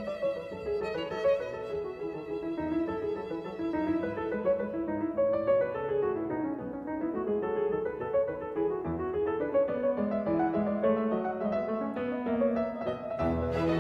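Instrumental background music led by a violin melody, with the texture growing fuller near the end.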